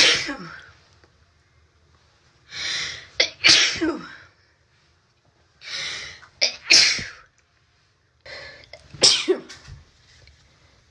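A person with a cold sneezing repeatedly in a fit: three loud sneezes about three seconds apart, each after a gasping in-breath, with the end of another sneeze at the very start.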